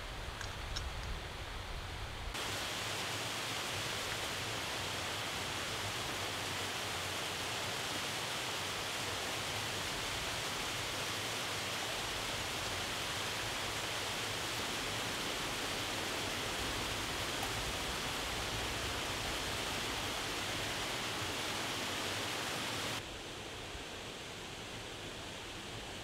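Rushing water of a nearby waterfall: a steady, even hiss that starts abruptly about two seconds in and cuts off abruptly near the end.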